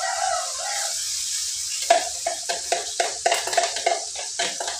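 Oil sizzling steadily in a frying pan, with a spoon knocking and scraping against a cup about three or four times a second from about two seconds in, as the spice paste is scraped out into the pan.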